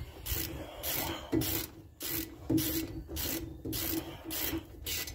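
Hand ratchet tightening bolts on the front brake assembly, a steady run of ratcheting strokes about two a second.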